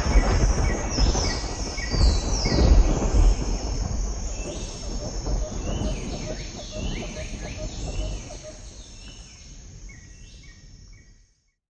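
Birds chirping in quick, repeated falling whistles over a low steady rumble, all fading out and ending shortly before the end.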